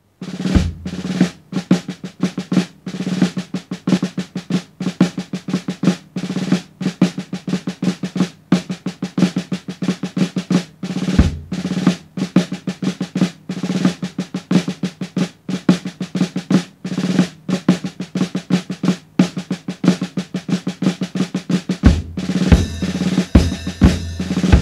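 Rudimental snare drum solo played with sticks: fast rolls and accented strokes in rapid succession. About 22 seconds in, bass drum kicks and ringing cymbals join as the playing moves onto the full drum kit.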